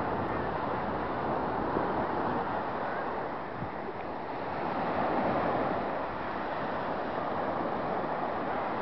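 Surf breaking and washing up a sandy beach, a steady rush that eases and swells again about midway, with wind buffeting the microphone.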